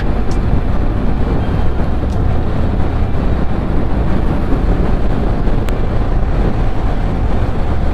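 Wind rushing over a rider-mounted microphone on a moving motorcycle, with the engine running steadily underneath.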